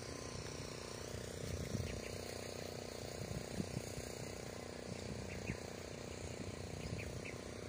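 Steady outdoor background noise with a low hum and scattered soft knocks.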